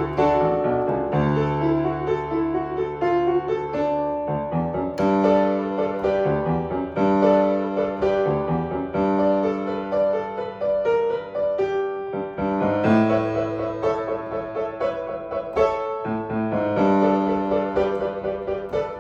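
Solo piano playing a bright, happy elementary piece in D major, a melody over sustained chords.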